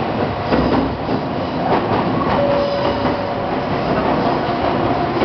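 Gakunan Railway 8000-series electric railcar running on curving track, heard from inside the driver's cab: a steady rumble of the running gear with several clacks of the wheels over rail joints, and a brief steady whine about halfway through.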